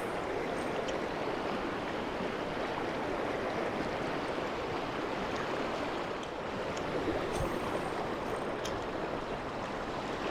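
Steady rush of the flowing South Platte River, with a few faint ticks over it.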